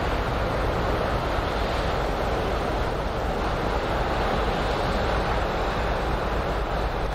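Steady rush of wind on the microphone mixed with the water wash of a containership passing close, with a low rumble underneath.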